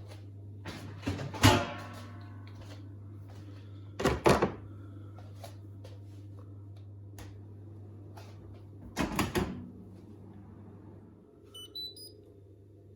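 Three loud knocks and clatters of plastic and metal, a few seconds apart, from handling the Indesit condenser tumble dryer, over a steady low hum. Near the end come a few short, high electronic beeps.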